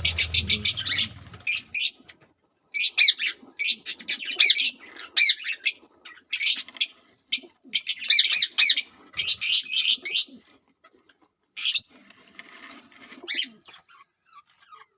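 Lovebirds chirping in rapid bursts of shrill calls, several clusters over about ten seconds, then one short burst near twelve seconds.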